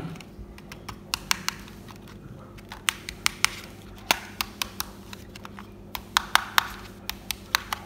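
Handling noise from a Sony HDR-CX405 camcorder turned over in the hands: irregular light clicks and taps of fingers on its plastic body, over a faint steady hum.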